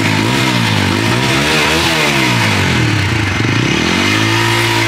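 TVS Apache RTR 160 4V's single-cylinder engine revved twice through its stock exhaust. The pitch climbs to a peak about two seconds in and drops back, then rises again in a second, shorter rev near the end.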